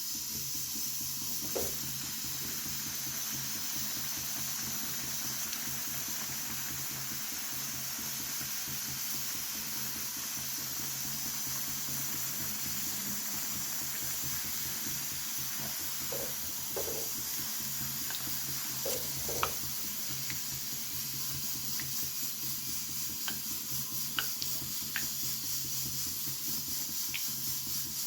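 Food frying in hot oil, a steady sizzle, with a few light clicks of a utensil in the second half.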